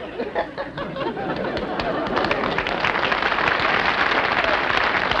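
Studio audience laughing, then breaking into applause about two seconds in.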